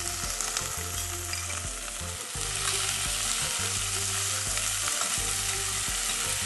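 Sliced onion and a whole red chili sizzling steadily in hot oil in a stainless steel saucepan, stirred with a metal spoon. The sizzle grows louder about two seconds in.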